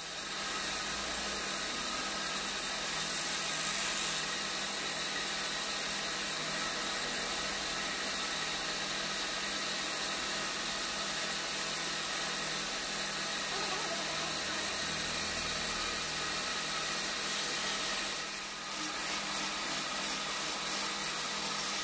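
Wood lathe running steadily while a turned wooden piece spins and is worked by hand. About 18 seconds in the sound changes to a rougher, flickering scrape as a gouge cuts into a fresh wooden blank.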